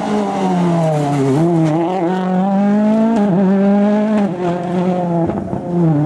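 Ford Fiesta RS WRC rally car's turbocharged four-cylinder engine working hard. Its pitch falls for about a second, then climbs steadily, drops sharply at a gear change about three seconds in, and pulls on again.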